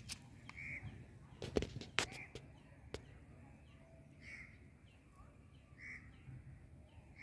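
A bird calling over and over, a short call every second and a half to two seconds. A few sharp clicks and knocks in the first three seconds as a wet cast net is pulled up out of the water.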